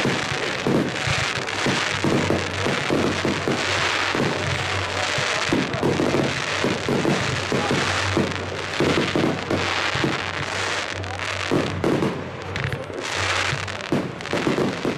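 Aerial fireworks bursting in a rapid, unbroken string of bangs and crackles, several a second.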